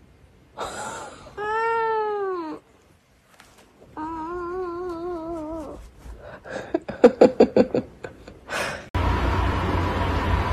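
Cat yowling: a long call that rises and falls in pitch, then a second, wavering call, followed by a quick run of short, loud sounds. Near the end a steady hiss and hum takes over.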